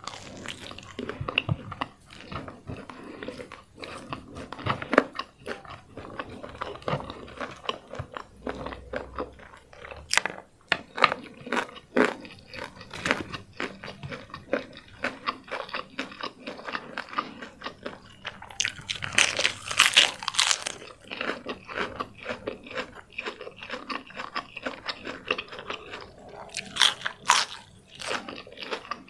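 Close-miked eating sounds: crunching bites of crispy deep-fried chicken coating and steady chewing, with irregular crackly crunches throughout. About two-thirds of the way through there is a louder, crisper burst of crunching.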